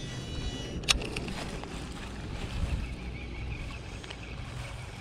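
Wind rumbling on the microphone while a baitcasting reel is cast and reeled in, with a single sharp click about a second in.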